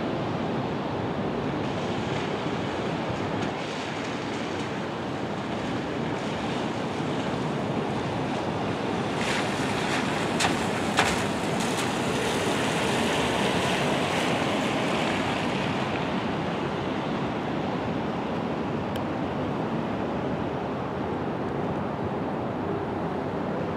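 Steady outdoor rushing noise, with two short sharp clicks about ten and eleven seconds in.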